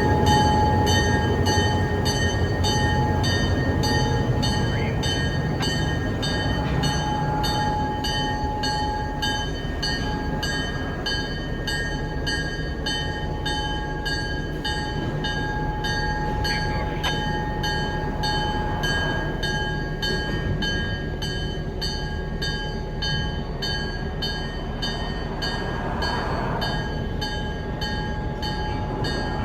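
EMD GP9 locomotive's V16 two-stroke diesel engine running with a steady low rumble that eases slightly. A regular high ringing pulses about twice a second over it.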